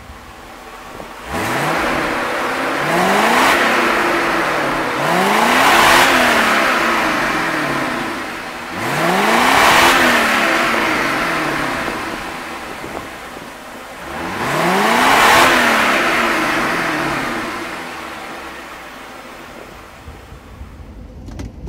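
Mercedes-Benz 380 SL's V8 revved at standstill, heard at the twin exhaust tips: four throttle blips, each rising in pitch and falling back to idle.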